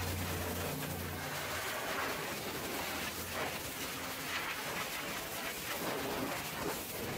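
High-pressure water jet from a pressure-washer lance spraying the steel underside of a dump truck's tipper bed and hydraulic lift cylinder: a steady hiss and spatter of water on metal that swells and fades as the jet moves. A low hum underneath stops about a second and a half in.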